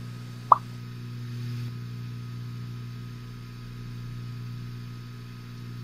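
A short, rising pop sound effect about half a second in, over a steady low hum.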